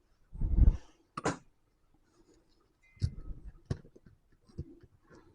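Plastic Lego pieces being handled and rummaged through: a short rattle, a sharp click, then scattered small clicks and knocks.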